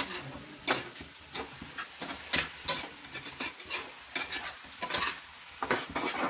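Spatula scraping and knocking against a wok while chopped saag greens are stir-fried, in irregular strokes about twice a second over a soft, steady sizzle.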